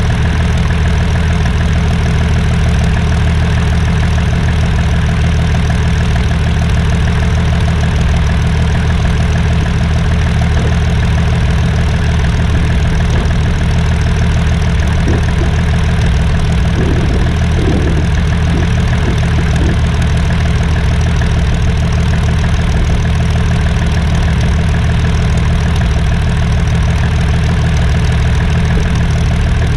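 Fairchild PT-26's Ranger six-cylinder inverted inline engine running steadily at low ground power, near idle, while the trainer taxis.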